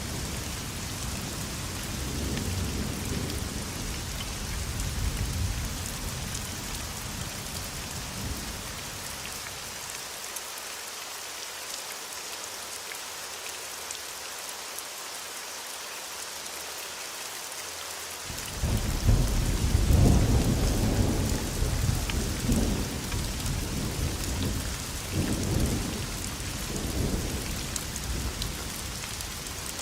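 Thunderstorm: steady heavy rain hissing throughout, with rolling thunder. A low rumble fades out about a third of the way in, and a louder thunderclap breaks about eighteen seconds in and rolls on in waves to the end.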